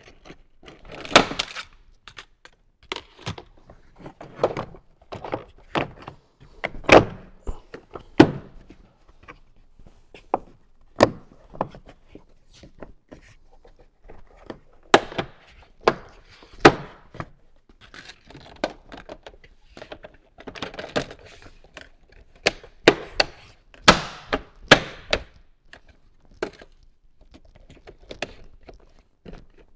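Plastic interior trim piece of a Jeep being fitted and pressed back into its retaining clips: a string of irregular clicks, knocks and thunks, some much sharper and louder than others.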